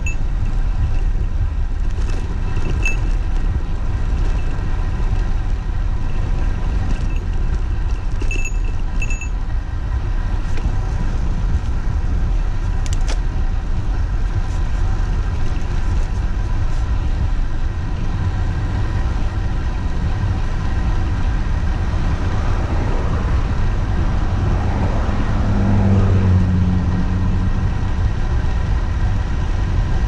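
Steady rush of wind and tyre noise from a road bicycle coasting fast downhill. About three-quarters of the way in, a motor vehicle passes, its engine note sweeping down in pitch as it goes by.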